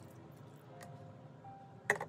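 Background music with held notes. Near the end comes a single sharp click of a wire whisk against a stainless steel mixing bowl as whisking starts again.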